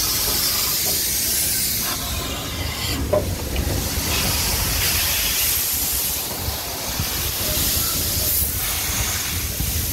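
SNCF 241 P steam locomotive passing close by: a loud, steady hiss of steam over a low rumble as the engine, its tender and then the coaches go past.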